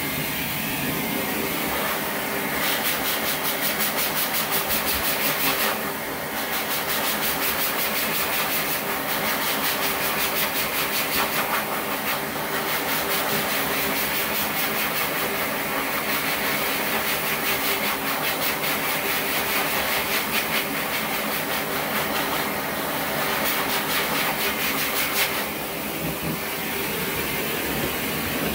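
Electric dog clippers with a #5 blade running with a steady hum. A fine rasp rises and falls as the blade passes through the coat, easing off briefly between passes several times.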